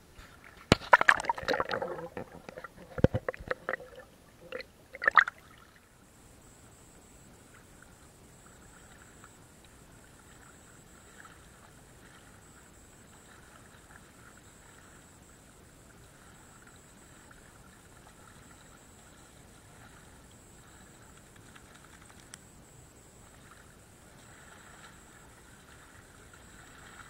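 Water splashing and sloshing right at the microphone for about the first five seconds, as a dog swims close by in river water. After that there is only a faint steady hiss with a thin high tone.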